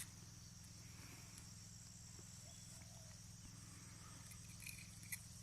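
Near silence with a faint, steady high chirring of insects, and a couple of faint clicks near the end.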